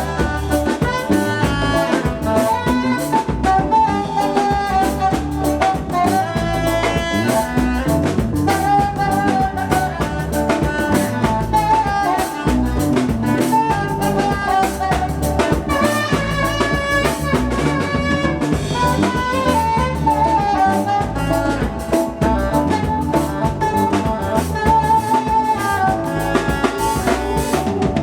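A live band playing: a drum kit keeps a steady beat under a sustained, wavering melody line.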